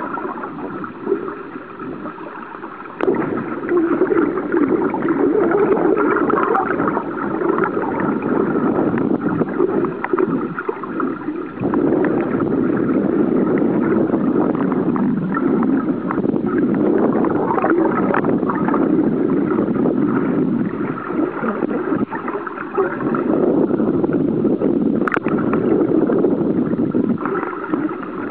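Muffled underwater noise picked up by a camera in the sea: a continuous rush and gurgle of water with a faint steady hum in it, stepping up in loudness about three seconds in.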